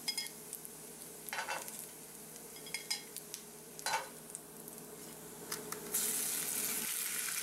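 Bacon frying in grease in a cast iron skillet, a faint sizzle with metal tongs scraping and clicking against the pan every second or so as strips are lifted out. About six seconds in, a louder, steady sizzle sets in.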